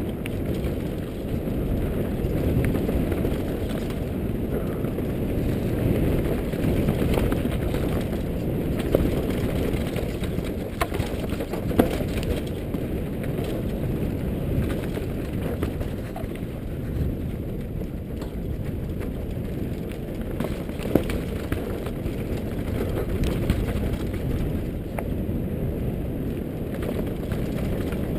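Giant Glory downhill mountain bike speeding down a dirt trail: a steady muffled rumble of wind and tyres on loose dirt, with the bike rattling and a few sharp knocks from trail impacts or chain slap, heard through a helmet-mounted GoPro.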